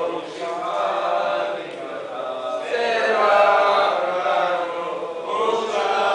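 Voices chanting Hebrew Sephardic selichot prayers in a sung liturgical melody, phrase after phrase with short breaks between.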